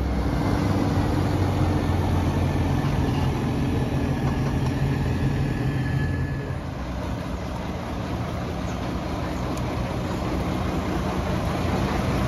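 Heavy vehicle engines of carnival carts running steadily in a low drone, with road traffic going by; the engine sound grows louder near the end as a cart comes close.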